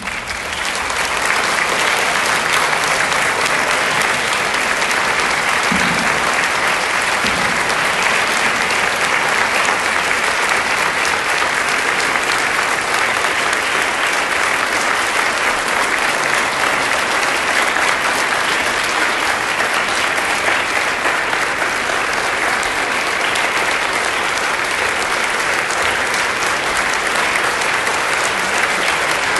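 A large audience of about 300 people applauding in a standing ovation: dense, sustained clapping that swells up within the first second and then holds steady.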